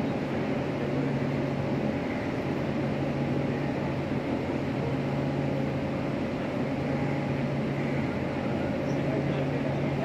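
Steady machinery hum: a low drone with a couple of higher steady tones over an even wash of noise, unchanging throughout.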